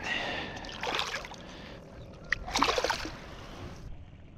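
Water splashing and sloshing against a kayak's side as a snook is released by hand and swims off, with two stronger splashes about one second and two and a half seconds in.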